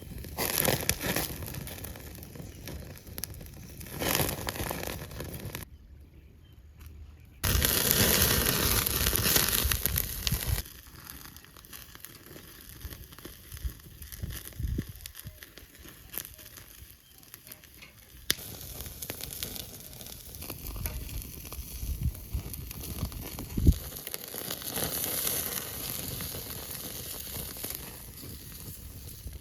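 Cooking over an open wood fire: the fire crackles and food sizzles. A louder, steady hiss starts about seven seconds in and lasts about three seconds. The sound changes abruptly several times.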